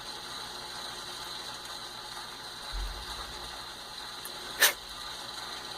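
Hand deburring tool being turned in the primer pocket of a 5.56 brass case to cut away the military crimp: a faint steady mechanical hum, a soft low thump a little before halfway, and one short sharp scrape about three-quarters of the way in.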